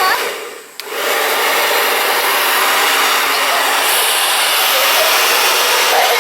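Handheld hair dryer blowing with a steady rush of air. Early on it winds down for a moment, a switch clicks, and it comes straight back up to full blow, switched to its faster setting.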